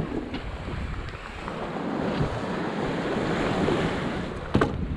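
Wind buffeting the microphone and water washing past a sailboat's hull, with a sharp knock at the very start and another shortly before the end.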